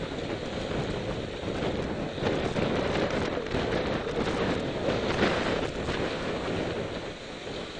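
Wind buffeting the microphone, a dense, rough noise with small jumps in loudness.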